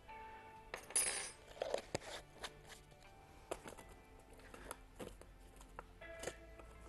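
Faint background music with scattered light clinks and taps of kitchen utensils against a bowl and jars, and a short rustle about a second in, as herbs are added to a salad dressing.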